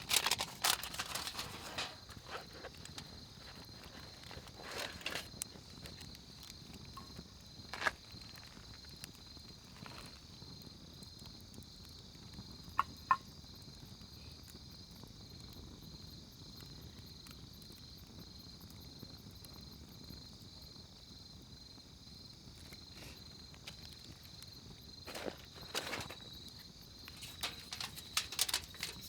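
Night insects chirping in a steady, high-pitched chorus, with a few scattered knocks and clicks of handling over it.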